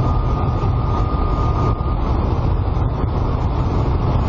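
Steady roar of wind and engine noise inside a light aircraft's cockpit, flying with its windscreen broken by a bird strike. A thin, steady high tone sounds over it for about the first two seconds.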